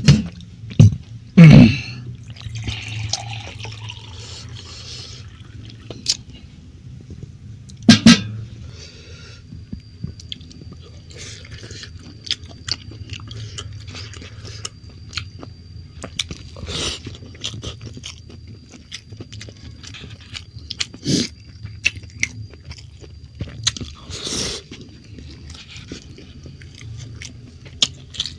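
Close-miked chewing and mouth smacking while eating stir-fried meat and rice, with many small wet clicks and a few louder bumps.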